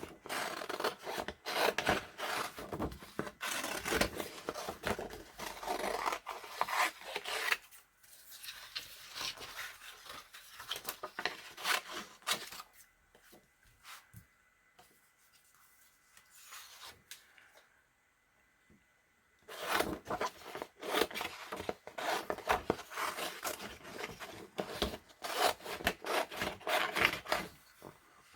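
Paper being worked by hand: scratchy rubbing and snipping of paper, in two busy stretches with a quiet gap of about ten seconds in the middle.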